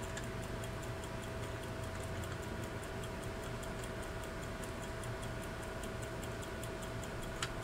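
Mappin and Webb carriage clock movement ticking steadily and quickly, about five ticks a second. The movement is out of its case and running after cleaning and reassembly.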